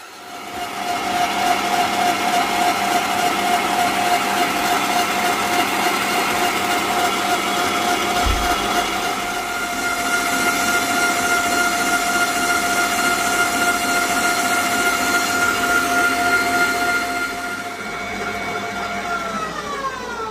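Electric stand mixer beating Swiss meringue buttercream in a stainless steel bowl. Its motor runs steadily with a high whine, then winds down near the end, the whine falling in pitch as it is switched off.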